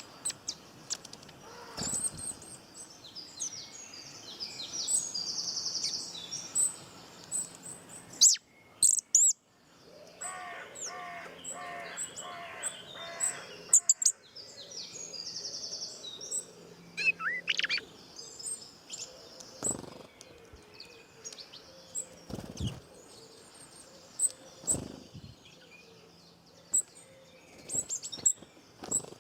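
Several songbirds chirping and singing, with many short high calls and quick trills overlapping, and a lower pulsed call for a few seconds near the middle.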